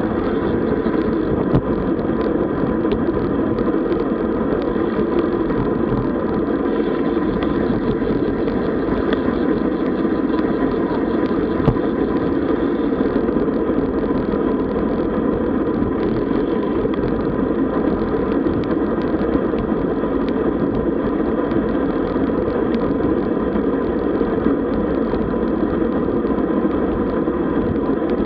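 Steady rush of wind on the microphone and road noise from a road bicycle riding at speed, with a few faint clicks.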